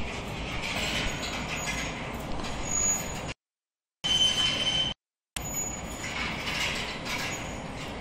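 Hanging-basket poultry frying line running, its overhead basket conveyor giving a steady mechanical rattle with brief high metallic squeals. The sound drops out to dead silence twice for a moment a little past the middle.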